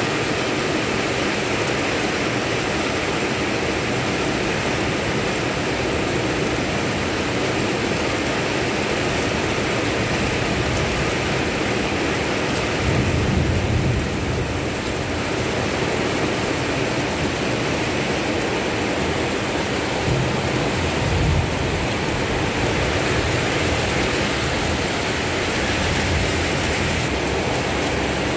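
Steady rain falling on a concrete road and roadside grass, an even hiss. A low rumble swells briefly about halfway through and again about three quarters of the way in.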